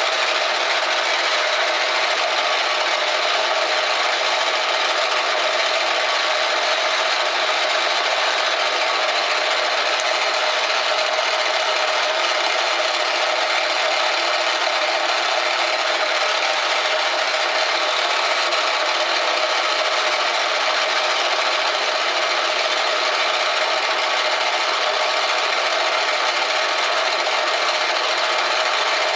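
Metal lathe running steadily while its cutting tool turns down the diameter of a brass workpiece: an even, unchanging hiss with a faint steady whine in it.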